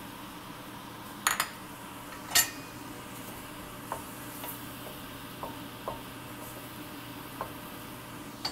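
Sharp metal clinks of a utensil against a stainless steel pan of cooking chicken pieces: a quick double clink, a louder one about two and a half seconds in, then several lighter taps, over a low steady hum.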